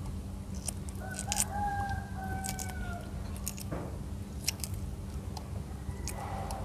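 A rooster crowing once in the background, a drawn-out call of about two seconds, with a fainter call near the end. Light clicks and crackles of eggshell being cracked and peeled off boiled duck eggs run underneath.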